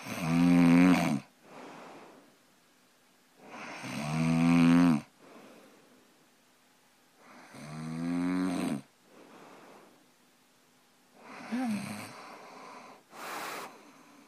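A man snoring in his sleep: four snores about four seconds apart, each followed by a softer breath, the last one weaker.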